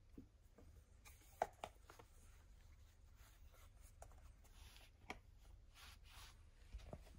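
Faint rustling and crinkling as a plastic drink bottle is rubbed and pushed against a cat lying on bedding, with a few short sharp clicks of the plastic, the loudest about a second and a half in.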